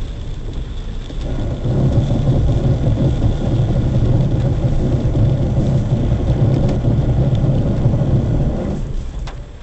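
Loud low rumble of vehicle engine and road noise picked up by a dashcam microphone, swelling about a second and a half in as a box truck runs close alongside, and fading near the end.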